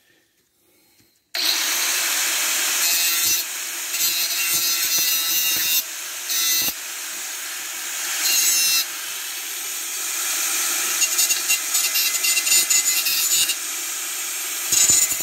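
Power grinder cleaning bare metal pipe back for welding. It starts suddenly about a second in and runs as a steady coarse grinding, louder and softer by turns as it is pressed onto the metal.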